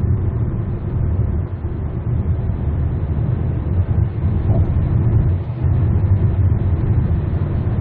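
Steady low rumble of road and engine noise inside a car's cabin while cruising at highway speed.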